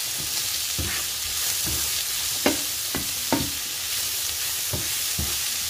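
Diced chicken breast, celery and red bell pepper sizzling in oil in a coated frying pan, with a steady hiss. A wooden spatula scrapes and knocks against the pan at irregular intervals as the food is stirred.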